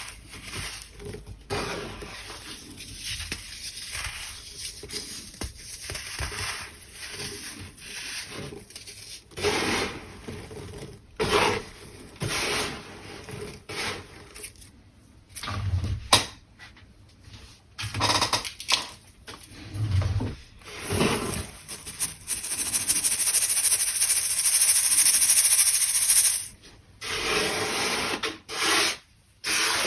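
Crunchy baking soda being crushed and rubbed, in irregular scratchy crunches of varying length, with one longer steady hiss about three-quarters of the way through.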